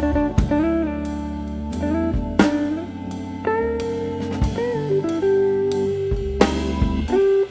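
Instrumental background music: a guitar melody with bending, sliding notes over a drum beat.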